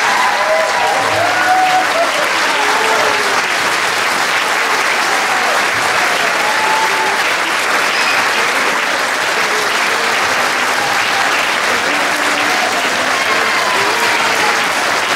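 Large audience applauding steadily after a concert, with voices calling out over the clapping.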